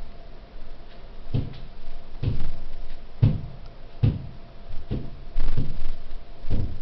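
Repeated dull, low knocking thuds inside an apartment, about one a second, seven in all, over a faint steady hum. The cause of the knocking is unexplained.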